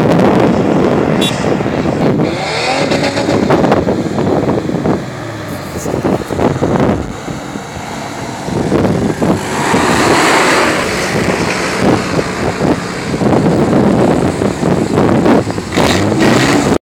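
Toyota Land Cruiser 70-series engine revving hard under load, climbing a sand dune. The pitch rises about two seconds in, the engine eases off for a few seconds midway, then pulls hard again until it cuts off suddenly near the end.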